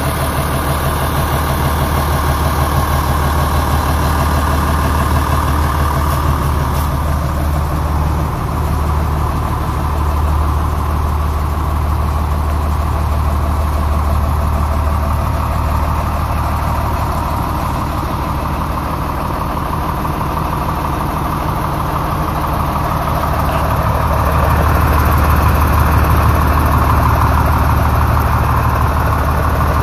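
Fendt Favorit 514 C tractor's six-cylinder diesel engine idling steadily, a little louder in the last few seconds.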